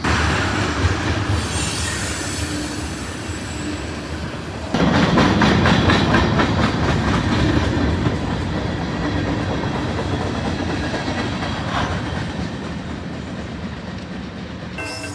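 Freight cars (covered hoppers and tank cars) rolling past on steel wheels, clattering rhythmically over the rail joints. The sound jumps louder and closer about five seconds in, then slowly fades as the train moves away.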